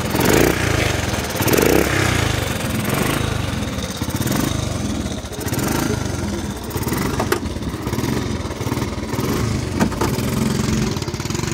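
Honda C70 single-cylinder four-stroke motorcycle engine running on a 3D-printed carburetor just after starting. It is revved in a couple of surges in the first two seconds, then runs more steadily.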